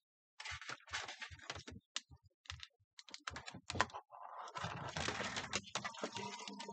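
Hotpoint front-loading washing machine in its wash phase, the drum turning laundry through soapy water: irregular splashes and knocks, growing into a denser continuous sloshing about four seconds in.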